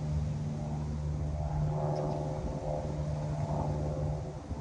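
An engine running steadily, a low even hum that drops away near the end.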